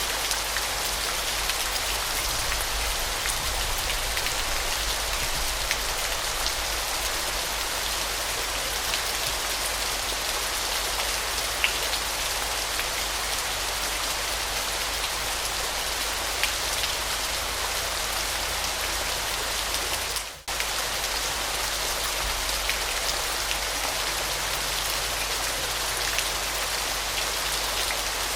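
Waterfall: a steady hiss of falling, splashing water, with small scattered drip sounds and a momentary drop-out about twenty seconds in.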